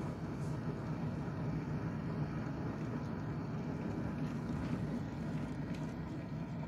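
Electric kettle heating water toward the boil: a steady, low rushing rumble without a break.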